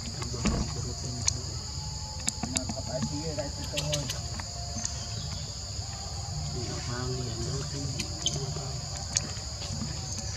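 Steady high-pitched chorus of insects buzzing in two unchanging pitches, with a few faint clicks and faint wavering voice-like calls underneath.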